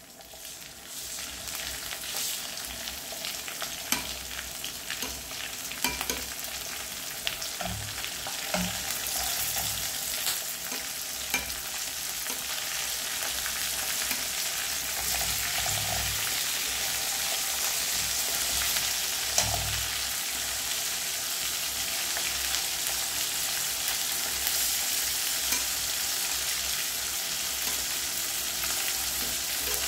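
Masala-marinated, egg-coated chicken pieces sizzling in hot coconut oil in a metal kadai. The sizzle builds over the first several seconds and then holds steady as the oil comes fully up to heat, with a few light clicks scattered through it.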